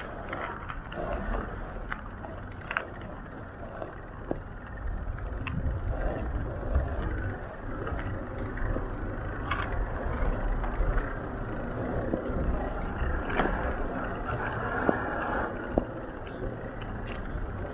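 Street ambience with passing vehicle traffic, a steady rumble broken by a few sharp clicks and knocks.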